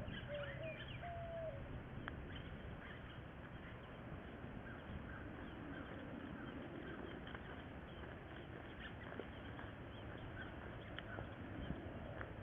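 A few short whining calls in the first couple of seconds, then a faint outdoor background with scattered small bird chirps.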